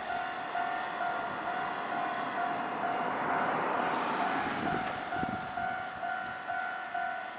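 A Japanese level-crossing warning bell rings in a steady, regular on-off pulse of two tones. A Nankai train passes over the crossing at the same time: its noise swells to its loudest about three to four seconds in, with a few heavy wheel beats just after.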